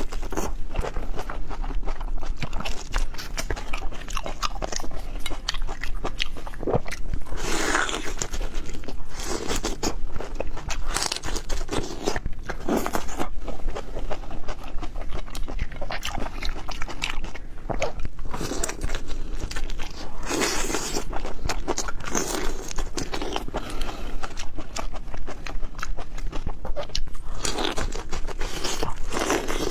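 Close-miked eating of seafood: repeated biting and chewing with crunching and wet mouth clicks throughout.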